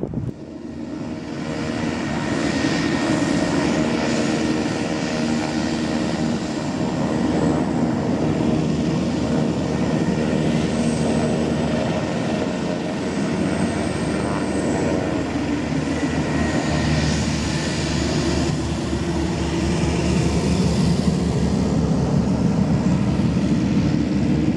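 Aircraft engines running close by: a loud, steady drone of rushing noise with several held tones, swelling over the first couple of seconds and then holding.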